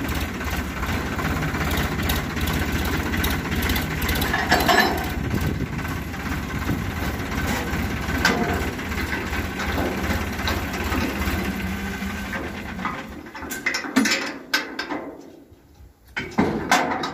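Diesel farm tractor engine idling steadily, then stopping about thirteen seconds in. A few sharp knocks follow near the end.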